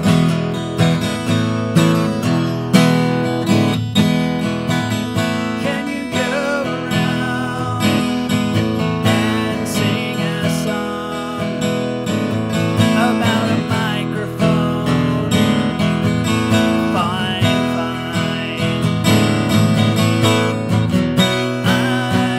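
Acoustic guitar played steadily, strummed and picked chords, recorded through a FIFINE K669 USB microphone.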